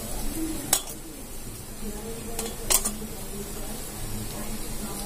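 Hand mixing spice masala into raw fish pieces in a steel bowl, with soft rubbing and handling noise. Two sharp clinks come through, one about a second in and a louder one near three seconds.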